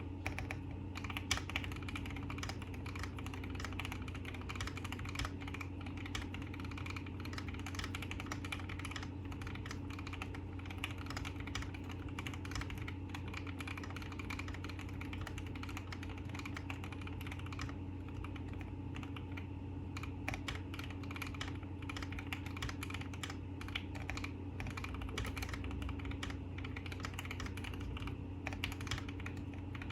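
Continuous typing on a Keychron Q1 custom mechanical keyboard fitted with Gateron Black Ink V2 linear switches and Durock stabilizers: a dense, irregular run of key clacks over a steady low hum.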